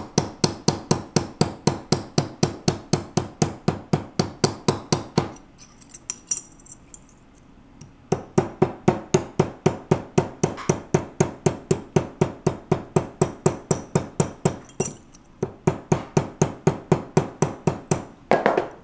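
Urethane-faced mallet tapping rapidly, about five blows a second, on a tube rivet resting on a steel bench block, flaring and folding the rivet's edge down to set it. The tapping stops for nearly three seconds a little after five seconds in, then resumes, with a short break near the end.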